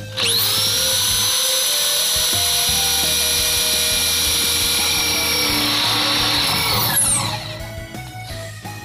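Power drill with a rivet-setting attachment spinning up and running at steady speed, a high whine, as it drills and sets a self-drilling rivet in a steel channel. It winds down with a falling pitch near the end.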